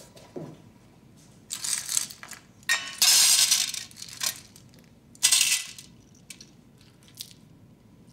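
Metal uniform buttons clattering in a metal tin as a hand drops and stirs them. There are three bursts of jingling clatter, the loudest and longest about three seconds in.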